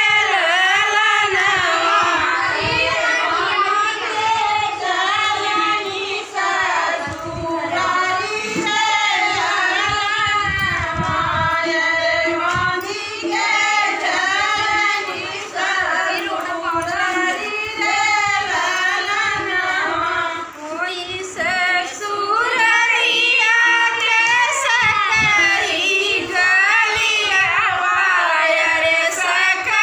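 Women singing a traditional Hindi wedding song (vivah geet) in high voices, unbroken but for a few short breaths.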